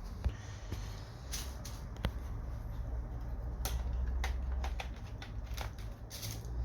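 Scattered small clicks and scrapes of hands working on a laptop's parts and tools, over a low steady hum.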